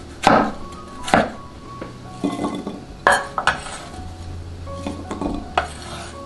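Chunks of peeled water chestnut tipped off a cleaver blade onto a ceramic plate. They land in several separate clattering knocks, about five in all, over soft background music.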